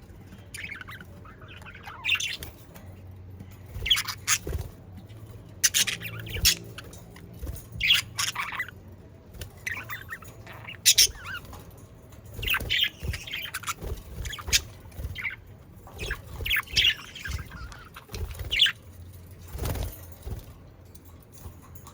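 Budgerigars chattering and squawking: a stream of short, irregular chirps and harsh screeches.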